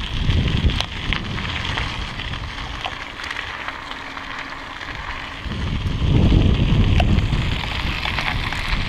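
IKEA Folkvänlig e-bike's tyres rolling on a gravel path, a steady crunching hiss with scattered ticks from small stones. Wind rumbles over the microphone just after the start and again more strongly from about halfway to near the end.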